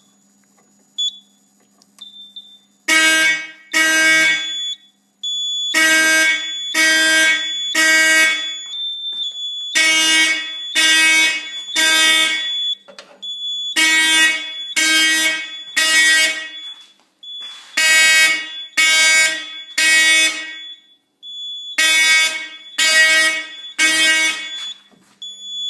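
Simplex 4051 fire alarm horn sounding code 3, the temporal-three pattern. It gives loud buzzing blasts of about half a second each, three about a second apart, then a pause, repeating over and over; it starts about three seconds in.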